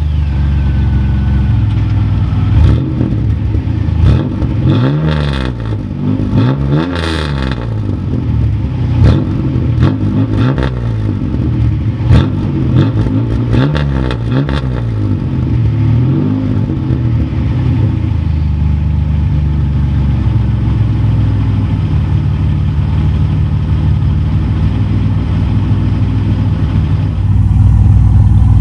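Exhaust of a Chevrolet Camaro's 3.8L V6 fitted with a Cherry Bomb performance muffler, revved up and down several times, then running steadily, a little louder near the end.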